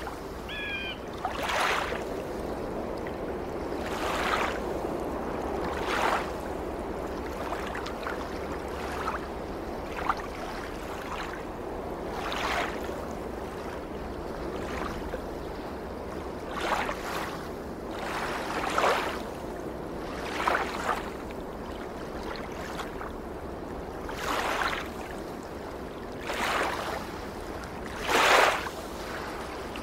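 Small sea waves lapping and splashing against a rocky shore: a steady wash, with a splash every two to four seconds and the loudest one near the end.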